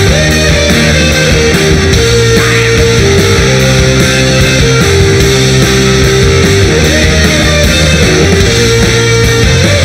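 Live rock band playing an instrumental passage with no vocals: electric guitars, bass and drums, with a melody of long held notes over a steady, dense backing.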